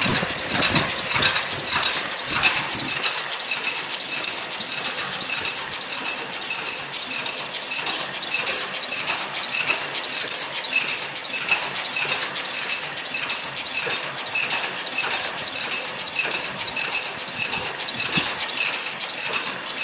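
High-speed paper cup making machine running: a steady, fast mechanical clatter of many small clicks from its rotary cup-forming turret, with a regular ticking beat.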